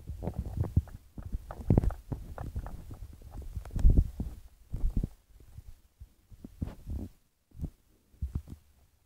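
Irregular dull low thumps and knocks, loudest about two and four seconds in, then thinning out to a few separate knocks near the end.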